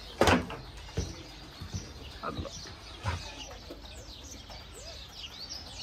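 Birds chirping and calling, with a run of quick, high chirps falling in pitch in the second half. A short, loud sound comes just after the start.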